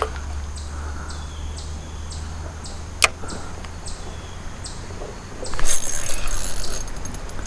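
Sharp click about three seconds in, then a spinning reel being cranked close by for the last two seconds, a loud rasping whirr with fast ticks.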